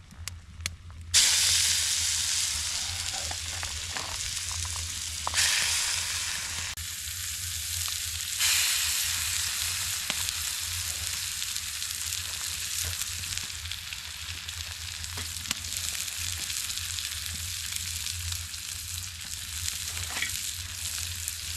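Steaks sizzling in a hot pan over a campfire: the sizzle starts abruptly about a second in as meat goes down, surges again around five and eight seconds in as more is added, then settles into a steady frying hiss.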